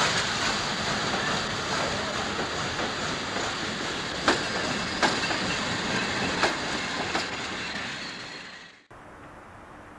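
Departing Ol49 steam train: steam hissing loudly around the locomotive and coaches as they roll past, with a few sharp clicks of wheels crossing rail joints. The sound fades and then cuts off abruptly to a much quieter steady background near the end.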